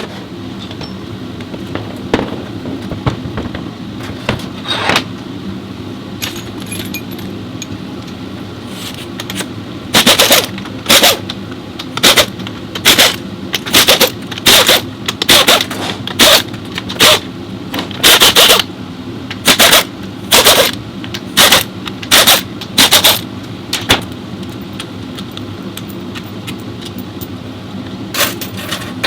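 A pneumatic impact wrench fires in about fifteen short bursts, roughly one a second, then once more near the end. Under it runs a steady workshop hum.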